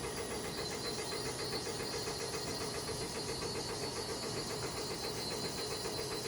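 An engine running steadily, its hum pulsing rapidly and evenly, over a faint hiss.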